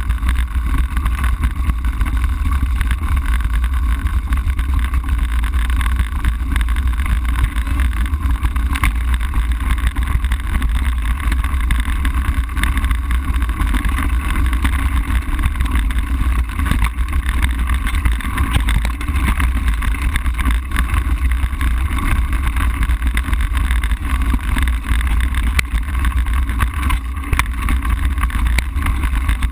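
Steady low rumble of wind buffeting the microphone together with tyre noise on gravel, from a camera riding on a moving mountain bike.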